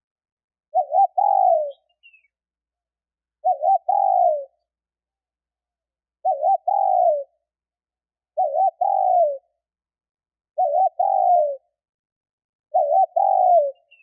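Female spotted dove cooing: six repeated phrases about every two and a quarter seconds, each two quick notes followed by a longer note that falls in pitch. This is the female call used to draw male spotted doves.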